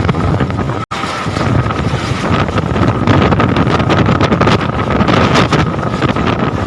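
Hailstorm in strong wind: hailstones pelting down in a dense clatter of hits over a roar of wind, the clatter getting heavier after a few seconds. The sound cuts out for an instant about a second in.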